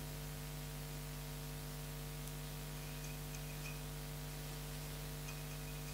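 Steady low electrical hum with faint hiss: the room tone and noise floor of the recording, with no other sound.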